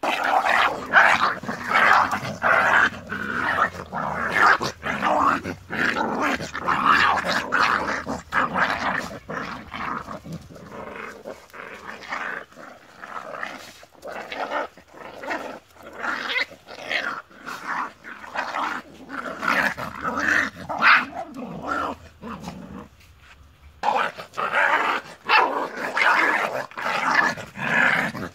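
Puppies play-fighting with an adult dog, growling in a rapid string of short growls with occasional barks. The sounds thin out to a brief lull shortly before the end, then start up again.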